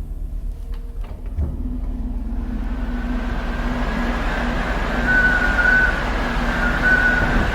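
Steady low drone of a large ferry's engines and machinery, with a constant hum, while a rushing noise builds up after a couple of seconds. Two short high squeals come about five and seven seconds in.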